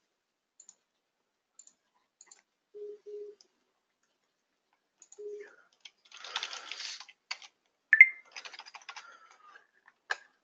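Computer keyboard typing and clicking in short, scattered bursts. The loudest is a single sharp click about eight seconds in.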